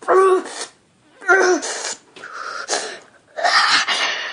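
A boy's voice making about five short, strained vocal bursts: falling cries and breathy, gasping hisses. They act out a bodily transformation.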